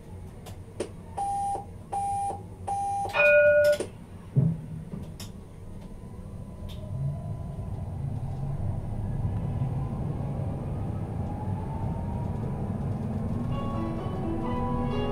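Tram's door warning signal: three short beeps, then a louder, higher tone. The tram then pulls away, with a low rumble building and the traction motors' whine rising in pitch as it accelerates, and a few stepped electric tones near the end.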